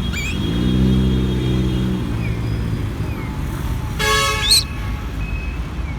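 Street traffic: a vehicle's low hum rises and falls in the first two seconds, and a short horn toot sounds about four seconds in. Faint short chirps, likely from the green-cheeked conure, come in between.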